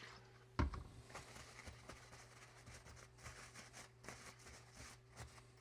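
Faint irregular scrubbing and light scraping as soldering flux is cleaned off a soldered circuit board with isopropyl alcohol, with a single sharp knock about half a second in.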